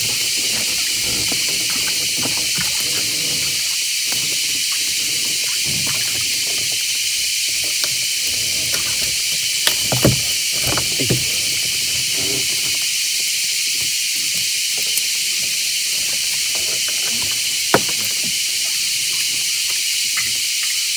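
A steady high-pitched hiss of a jungle insect chorus, with the soft rustle of a gill net and a few knocks as a fish is worked free of the mesh against the side of a small boat. The louder knocks come about halfway through and once more, sharply, near the end.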